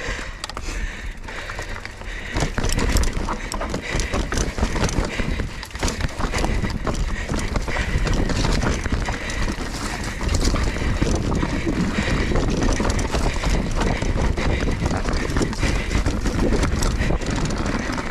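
Mountain bike riding down a dirt trail: tyres rolling over rough ground with a constant clattering rattle of chain and frame, over a low rumble of wind on the microphone. It gets louder about two seconds in.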